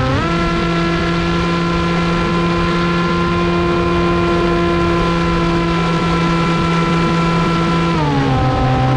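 RC plane's electric motor and propeller whining at a steady pitch over a rushing noise. The pitch steps up just after the start, holds, then drops about 8 seconds in as the throttle is eased back.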